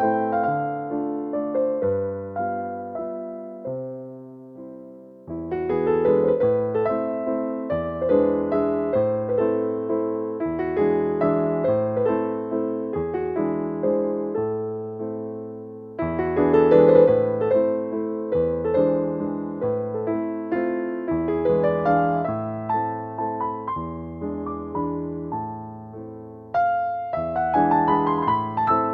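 Background piano music: slow, sustained chords and melody notes, with the phrase starting afresh about five seconds in, around the middle, and again near the end.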